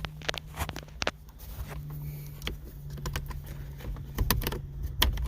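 Small plastic clicks, taps and rattles from prying the tabbed switches out of a truck's climate control panel, over a steady low hum.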